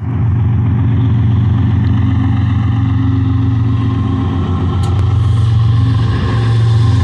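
Lead GE ES44C4 diesel locomotive of a BNSF freight train, with more GE units behind it, running under power as it approaches: a steady deep engine drone that grows a little louder near the end.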